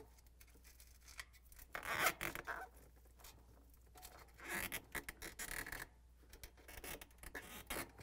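Foam barrier being slid and pressed into place against a refrigerator's evaporator coil: faint rubbing and scraping of foam, with the longest scrapes about two seconds in and again around the middle.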